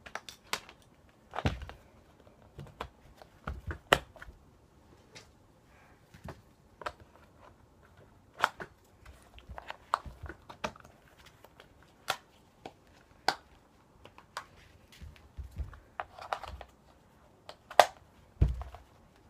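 V-Force Grillz paintball mask being handled and reassembled on a tabletop: irregular clicks, snaps and knocks of its plastic frame and lens. There is a heavier thump about a second and a half in and another near the end.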